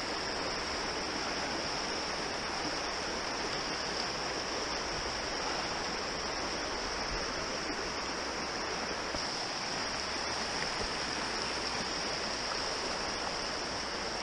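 Small woodland creek flowing steadily, a constant rush of running water.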